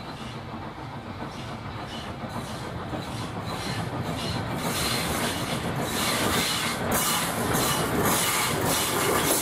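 Lambton Colliery no.29, an 0-6-2 steam tank locomotive, running with its train towards the listener. Its exhaust beats grow steadily louder as it approaches.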